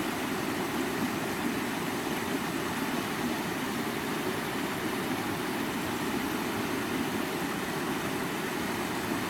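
Water of a stream running steadily, an even rushing with no breaks.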